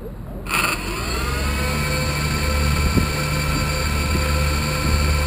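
Small quadcopter drone's electric motors and propellers starting abruptly about half a second in, then running steadily as a whine of several steady tones over a low hum, the drone still idling on the ground before takeoff.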